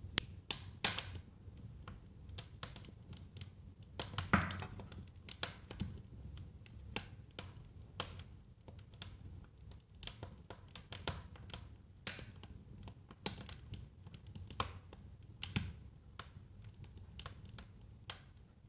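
Wood fire in a fireplace crackling, with irregular sharp pops and snaps over a low, steady rumble of the flames. A burst of louder pops comes about four seconds in.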